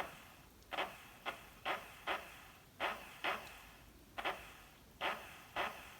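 Small 12-volt DC motor from a Camry heater blend door actuator, bench-run in short bursts: about ten brief whirrs in six seconds as power is switched on and off. Each burst starts sharply and fades away. This is a test of whether the repaired motor, which used to stall intermittently, now starts every time.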